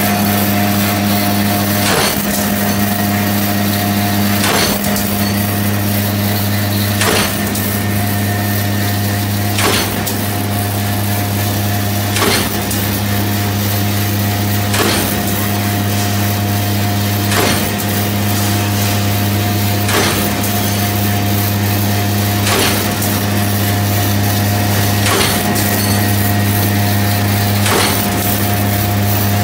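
High-speed wire straightening and cutting machine running: a steady motor hum with a sharp clack about every two and a half seconds, as the cutter chops off each length of wire.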